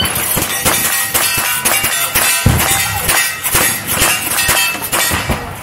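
Rapid handgun shots in quick succession, the steel targets ringing when hit.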